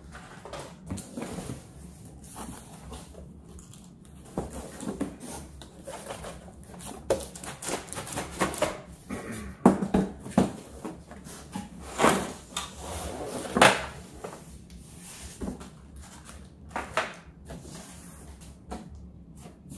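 Cardboard packaging being handled and opened: irregular rustling, scraping and knocking of cardboard, with a few louder knocks about halfway through.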